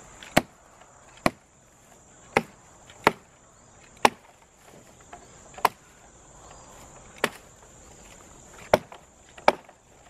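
Small axe head of a survival multi-tool chopping side branches off a fallen log: nine sharp strikes into wood at uneven intervals, about one a second. A steady high trill of crickets runs underneath.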